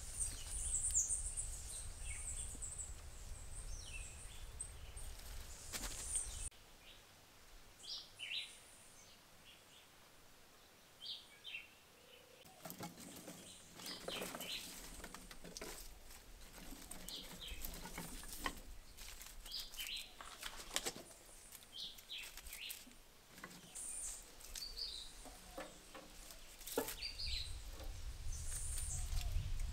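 Birds chirping over a low rumble. Then, from about twelve seconds in, a run of sharp knocks and cracks as kindling is split with a hatchet.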